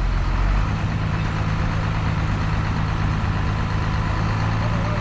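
An engine idling steadily with a low hum. Its deepest note drops away about half a second in.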